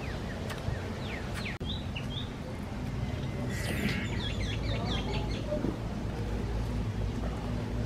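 Birds chirping in short runs of quick high, falling notes over a steady low hum.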